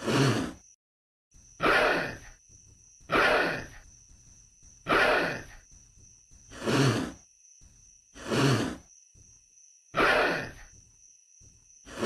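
Baryonyx creature sound effect: a loop of heavy, rasping breaths, seven in all, evenly spaced about one every 1.7 seconds, over a faint steady high-pitched whine.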